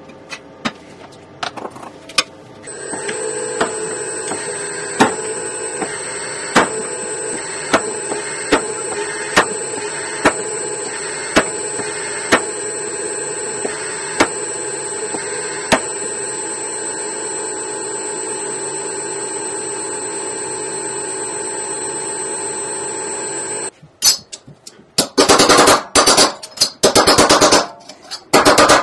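An X-Drive motorized rolling mill runs with a steady hum and whine, with a sharp click about once a second for a while. Near the end the mill stops and rapid, loud hammer blows ring on metal on a steel bench block.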